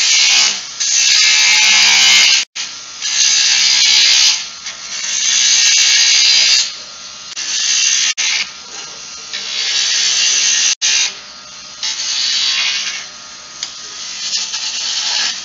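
Jet wood lathe spinning a wooden spindle while a skew chisel cuts it: a series of hissing cuts, each one to two seconds long with short pauses between, over the lathe's steady hum, the cuts growing softer near the end.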